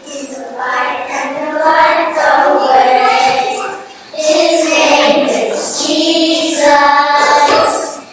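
A group of young children singing a song together, with a brief break in the singing about four seconds in.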